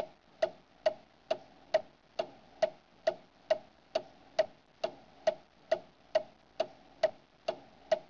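Clock ticking steadily, a little over two ticks a second, each tick with a short ring.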